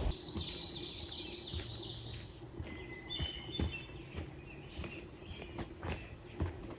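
Songbirds chirping over a steady high-pitched hiss of woodland background, with faint knocks scattered throughout.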